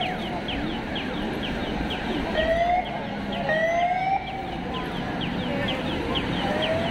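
Emergency-vehicle sirens: slow rising wails, the longest one near the end, over a fast chirping yelp about four times a second, against city street noise.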